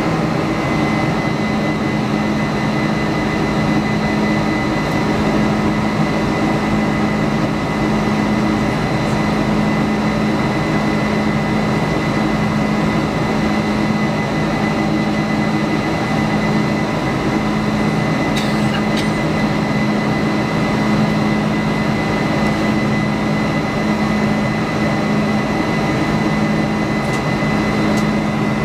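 Cabin noise of a Boeing 747-400 climbing out after takeoff: the steady drone of its Pratt & Whitney PW4056 turbofans heard through the fuselage beside the wing, with a steady low hum and a thin, steady high whine.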